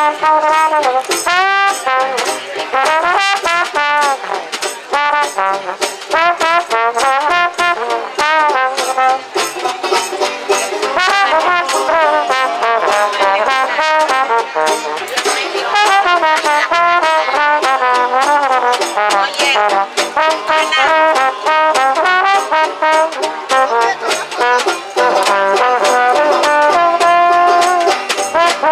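A small swing jazz band playing live. A trombone leads with a bending, sliding melody over a double bass and a drummer on a drum and cymbal keeping a steady beat.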